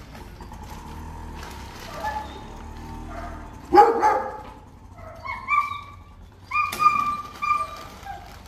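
A dog barking: one loud bark about four seconds in, followed by several short, high yelps.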